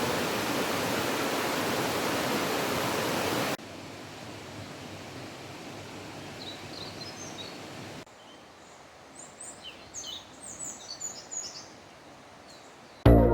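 Rushing water of a mountain waterfall: a steady rush that drops to a quieter level twice with abrupt cuts. Birds chirp over the quieter water, a few calls midway and many near the end.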